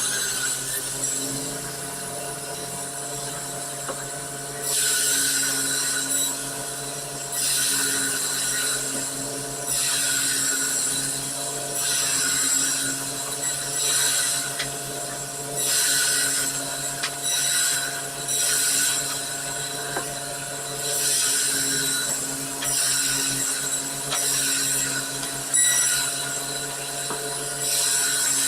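Large machine-driven chainsaw running steadily under an engine hum and biting into wood again and again, with a short burst of sawing about every two seconds.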